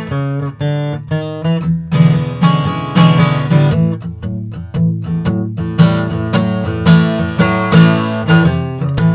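Martin D-18-style dreadnought acoustic guitar with an Adirondack spruce top and mahogany back and sides being played solo: bass notes with strummed chords over them in a steady rhythm.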